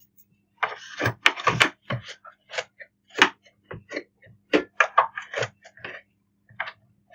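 Cloth wiping lint out of the shuttle race of an Usha Janome Dream Stitch sewing machine: irregular rubbing strokes with small clicks and knocks against its plastic and metal parts.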